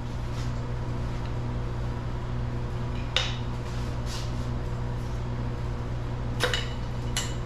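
Metal engine parts and tools clinking as a small-block's connecting-rod cap and bearing are handled during teardown: three or four sharp metallic clinks over a steady low hum.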